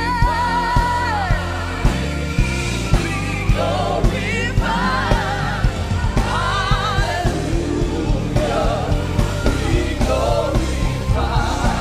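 Live gospel praise-and-worship music: voices singing and holding wavering notes over a band with bass and a steady drum beat.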